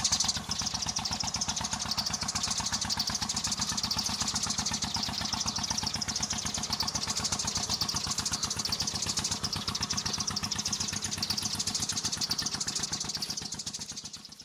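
A small engine idling steadily with an even, rapid beat, fading out at the very end.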